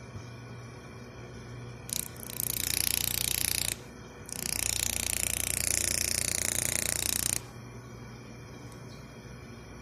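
Welling PG evaporator fan motor switched on during a bench test: a click about two seconds in, then loud whirring hiss from the spinning shaft in two spells, the first about a second and a half long, the second about three seconds, each cutting off sharply. A steady low electrical hum runs underneath.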